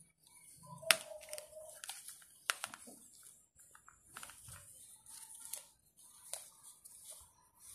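Cloth pants being handled and shifted about: fabric rustling, with scattered sharp clicks and knocks, the loudest about a second in.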